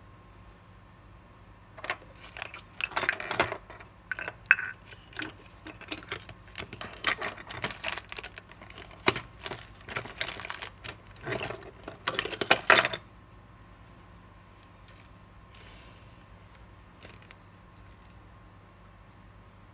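Irregular clattering and crinkling of small objects being handled on a watchmaker's bench. It starts about two seconds in, runs densely and stops suddenly after about eleven seconds, leaving faint room tone.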